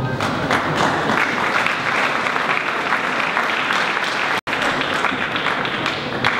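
Audience applauding, starting just as the last notes of the tango music die away. The applause breaks off for an instant about four seconds in.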